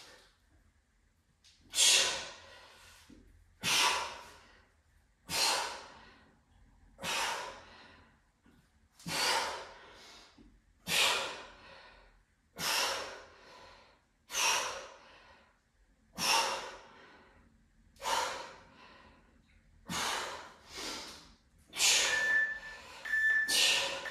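A man breathing hard in a steady rhythm, one forceful breath about every second and three quarters, with each rep of a kettlebell lifting exercise. Near the end, an interval timer gives short countdown beeps.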